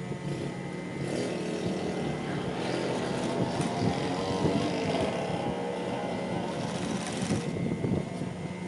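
Industrial sewing machine stitching a binding strip onto quilted vinyl. Its motor hums steadily throughout, and from about a second in the needle runs fast until near the end.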